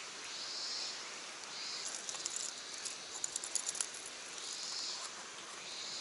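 A fishing lure and its hooks being handled: a quick run of light, sharp clicks and rattles in the middle, over a steady outdoor hiss that swells every second or two.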